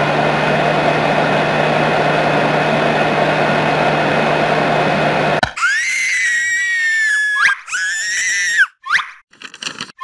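Canister vacuum cleaner running with a steady hum and hiss, cutting off suddenly about five and a half seconds in. Then comes a high-pitched, squeaky cartoon voice in short exclamations that glide up and down in pitch.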